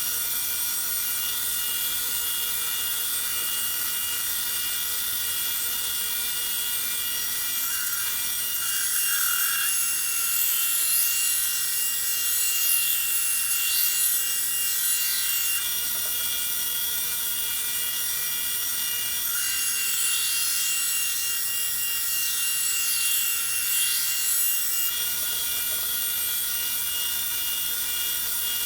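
Large belt sander running with a steady high whine while a steel knife blade cut from a chainsaw bar is ground freehand against the belt to put on its bevel. The grinding grows louder and scratchier in two long passes, about ten seconds in and again about twenty seconds in.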